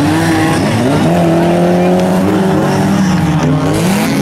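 Autocross race car engines revving hard, more than one engine note overlapping. The pitch climbs about a second in, holds, and rises again near the end.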